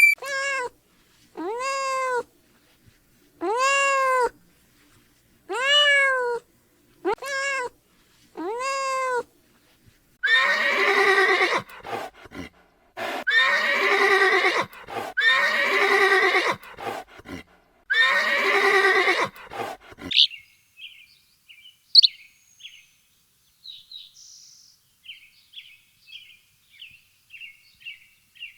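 A run of animal calls. First come about six short calls that rise and fall in pitch, then four longer, harsher calls. In the last third there are only faint, quick high chirps.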